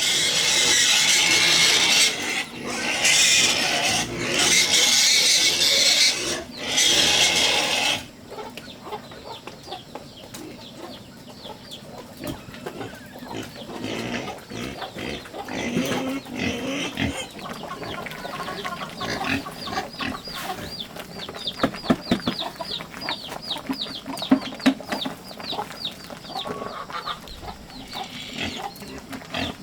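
Pigs squealing loudly in bursts for about the first eight seconds, then grunting and snuffling more quietly, with many quick high chirps in the second half.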